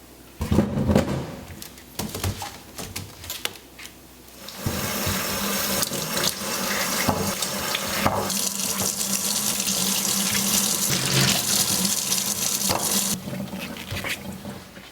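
A few clicks and knocks, then a tap running steadily into a sink from about four and a half seconds in for roughly eight seconds, cut off suddenly, followed by a few light knocks.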